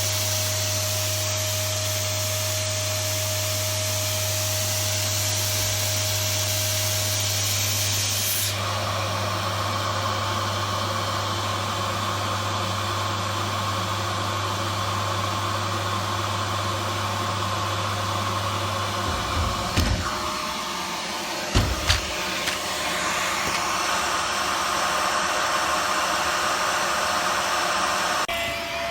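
iwoly V600 corded cyclone stick vacuum's motor running steadily with a loud whir and hiss. Its tone changes about a third of the way in, and a few short knocks come about two-thirds through.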